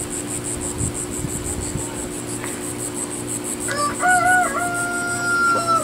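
A rooster crows once, starting about four seconds in: a few short wavering notes, then a long held final note. A pulsing high insect chorus runs underneath.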